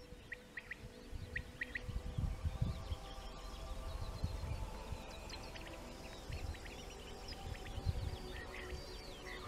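Common quail calling its short three-note call twice in the first two seconds, with other small birds chirping through the middle. Underneath run soft music with sustained tones and gusts of wind rumbling on the microphone, the gusts loudest a couple of seconds in.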